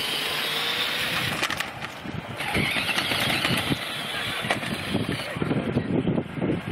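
Small battery-powered children's ride-on toy car moving over pavement: electric motor whine and the uneven rolling noise of hard plastic wheels, growing rougher and louder about halfway through.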